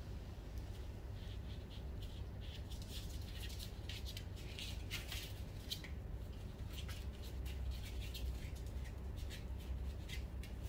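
A puppy chewing and tugging a knotted rope toy and scrabbling on cardboard and a pee pad: many small irregular scratches, rustles and clicks over a steady low hum.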